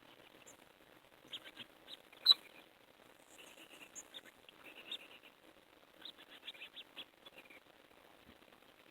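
Hummingbirds "barking": rapid clusters of short, high chip calls coming in several bursts, with one sharp, loud chip a little over two seconds in.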